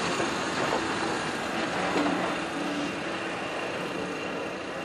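Steam train drawing out past the platform: the locomotive moves away and the coaches roll by with a steady rushing noise that slowly fades.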